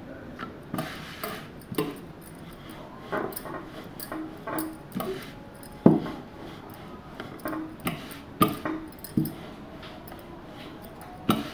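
Wooden rolling pin rolling and knocking on a wooden board as a roti is rolled out, in irregular taps and clacks, the loudest knock about six seconds in.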